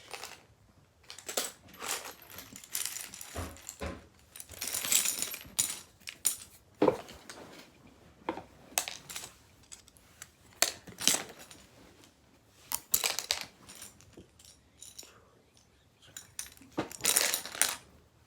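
Small hard parts clattering and rattling in irregular bursts as a box of pieces is rummaged through by hand.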